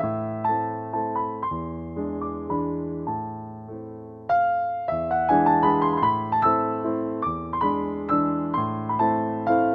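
Background music: a keyboard playing a flowing melody of plucked-sounding notes over a sustained bass, growing fuller about four seconds in.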